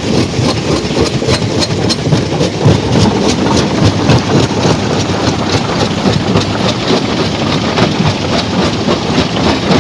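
Stone crusher running, with rock clattering and knocking through it in rapid irregular strikes over a steady heavy rumble.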